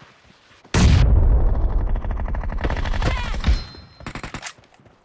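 Automatic gunfire in a first-person shooter video game. A long rapid burst starts under a second in and lasts about three seconds, then a shorter, quieter burst comes around four seconds in.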